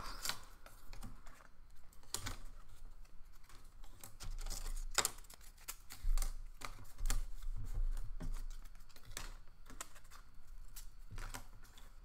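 Wooden popsicle sticks clicking and tapping as they are picked up and set down one by one on a wooden tabletop, in an irregular scatter of light clicks.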